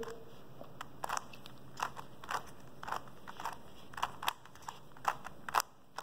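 Stickerless plastic 3x3 Rubik's cube being turned by hand: its layers click and scrape in an uneven string of short snaps, a few a second, as a last-layer algorithm is run to orient the yellow face.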